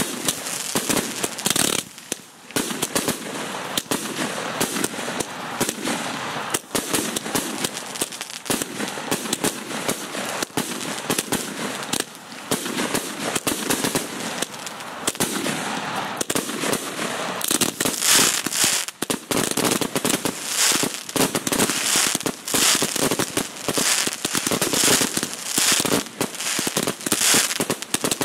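Fireworks display: continuous crackling and popping from crackle effects and bursting stars. From about two-thirds of the way through comes a quick string of sharp shots, about two a second.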